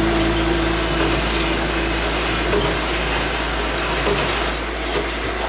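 Light-rail tram running along the track, heard from inside near the driver's cab: a steady rumble of wheels on rail, with a steady hum that fades out about two seconds in.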